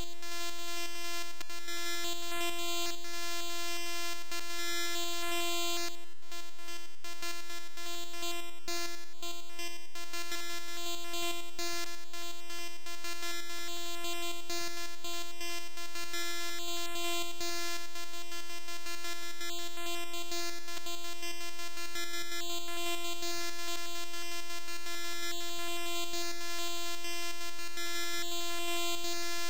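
Bytebeat music: a harsh, buzzy computer-generated tone computed from a one-line formula, holding one steady pitch with a dense stack of overtones.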